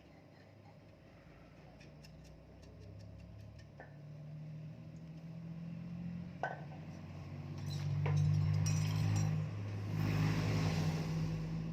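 An engine running with a low hum that grows steadily louder over several seconds, with a few sharp metallic clinks of tools on metal.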